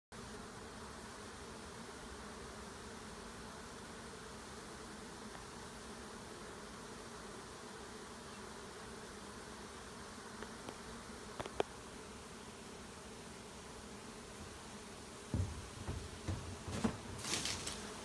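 A swarm of bees buzzing as one steady, dense hum. A sharp click comes a little past the middle, and several bumps and rustles follow near the end.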